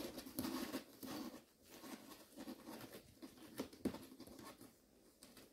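Kittens scrabbling and pattering over cardboard boxes, their claws scratching and rustling the cardboard, with a sharp knock at the start and another nearly four seconds in.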